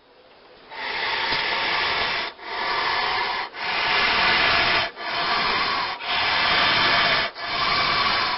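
A snake's rasping hiss, given as a desert horned viper's warning sound: six long strokes of about a second each, separated by brief breaks. This viper makes its warning rasp by rubbing its rough scales together.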